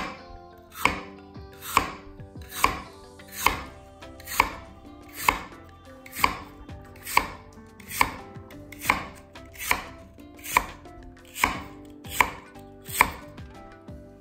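Kitchen knife slicing a peeled lotus root into thin rounds on a wooden cutting board. Each cut ends in a sharp knock of the blade on the board, evenly paced a little more than once a second, about sixteen in all.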